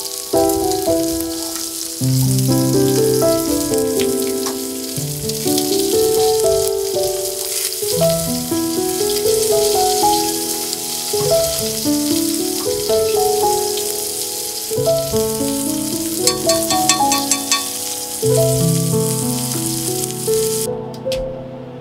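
Steak sizzling as it sears in a cast-iron skillet, a steady hiss, with gentle background music of held notes over it. The sizzle cuts off sharply near the end.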